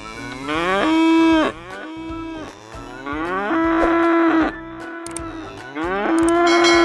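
Cow mooing three times, each long call rising in pitch and then held steady.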